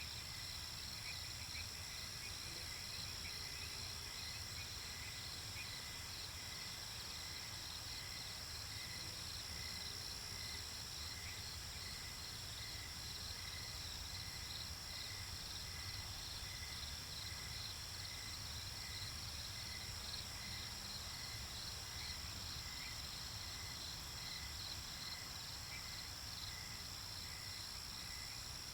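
Night insect chorus: crickets chirping steadily and without a break, with a fast trill overhead and a lower chirp repeating about once a second.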